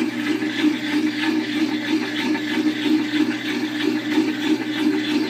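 Kenmore top-load washer with a belt-drive transmission, running empty on a rinse cycle: a steady motor and transmission hum with a tone that wavers in a quick, regular pattern.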